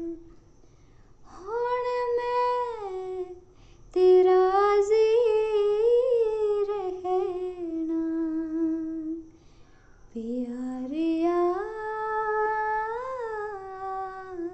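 A woman singing alone, with no instrument: three long, drawn-out phrases of held and gliding notes between lines of a Punjabi Sufi devotional song.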